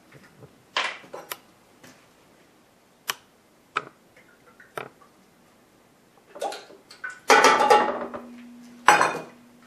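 Light clinks and taps of a metal measuring cup and a hot-sauce bottle as the sauce is measured out, a handful of separate knocks in the first half. Near the end comes a longer, denser stretch of handling noise lasting a couple of seconds.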